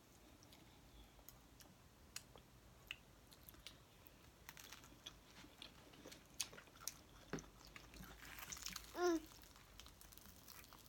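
Soft close-mic chewing and eating sounds, with scattered light clicks of a fork on a plate. A brief hummed voice sound comes about nine seconds in.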